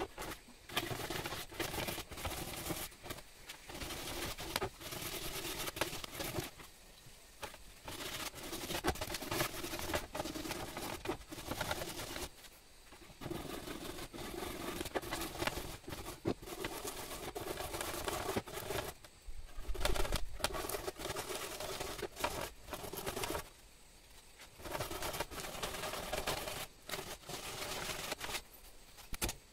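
Hand-sanding a soft gamari-wood plate stem with sandpaper: rasping back-and-forth strokes in long runs, broken by a few short pauses.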